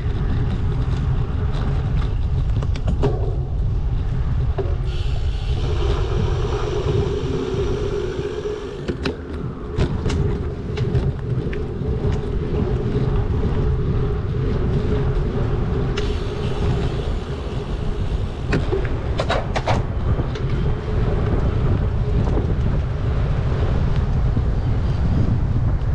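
City road traffic heard from a moving bicycle, under a constant low wind rumble on the microphone. A vehicle's steady hum runs through most of the stretch, with a few sharp clicks about ten and twenty seconds in.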